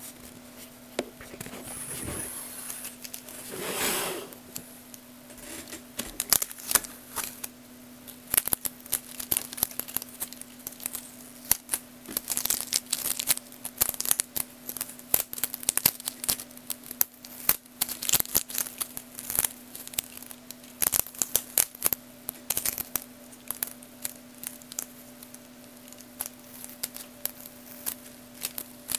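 Plastic Lego Technic curve conveyor parts clicking and clattering densely and irregularly over a steady low hum, the clicking setting in about six seconds in. Before that, a louder rustling swell a few seconds in.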